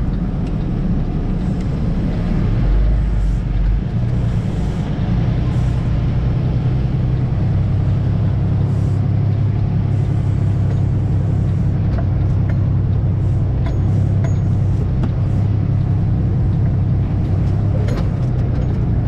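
Semi truck's diesel engine pulling under load through mud with the differential locked, a steady low drone that climbs in pitch about four seconds in and changes again a few seconds later. Occasional light knocks and rattles sound over it.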